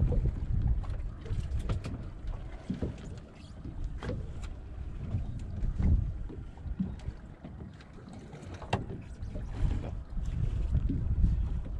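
Wind gusting over the microphone on an open fishing boat, an uneven low rumble that swells and fades, with water against the hull and a few light clicks and knocks scattered through.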